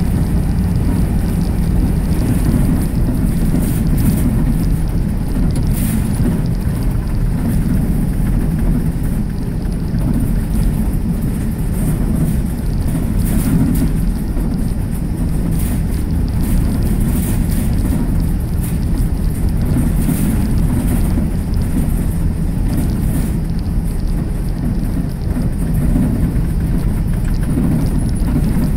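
Steady low rumble of a car driving, heard from inside the cabin, with a few faint ticks scattered through it.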